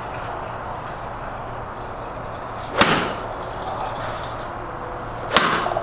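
Two sharp golf club strikes on the ball, each a crisp crack with a short ring after it, about two and a half seconds apart, over a steady low hum.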